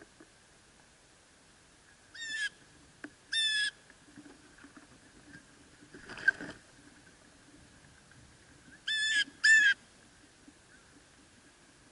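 Blue jay calling: two harsh calls in quick succession about two seconds in, and another, louder pair near the end. In between, a brief flurry of wingbeats close by as a bird flaps in to land.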